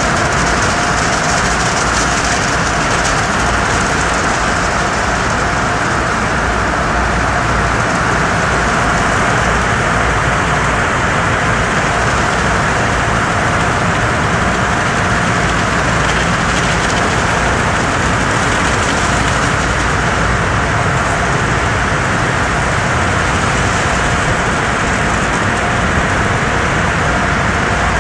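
Tunnel car wash running: spinning cloth brushes slapping over a foam-covered pickup truck amid spraying water and wash machinery, a steady loud noise with a faint constant hum.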